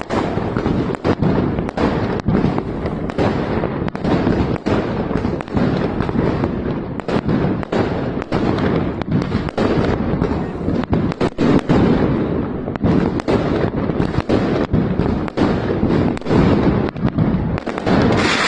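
Many fireworks exploding at once: a dense, continuous barrage of bangs and crackles over a constant rumble, with a hissing burst near the end.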